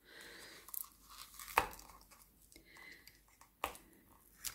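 Plastic packaging being cut open with a craft knife and torn, crinkling, with a few sharp clicks.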